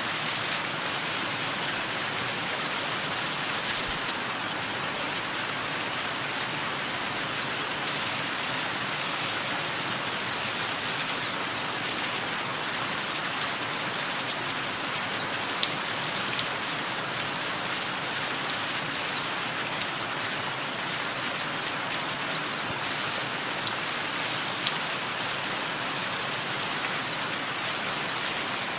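Steady hiss of falling rain with a bird chirping over it: short, high, downward-sweeping chirps, often in twos or threes, every two or three seconds.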